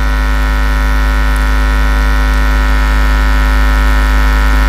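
Loud, steady electrical mains hum: a constant buzz with many overtones and a heavy low drone.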